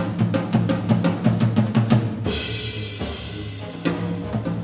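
Jazz drum kit played busily, with rapid drum hits. About two seconds in, a cymbal wash rings for over a second while the hits thin out, then the rapid drumming resumes.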